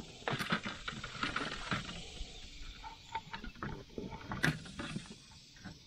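Rear side-window louver being handled and set against the car's quarter window: scattered rustling, light knocks and clicks, with one sharper knock about four and a half seconds in.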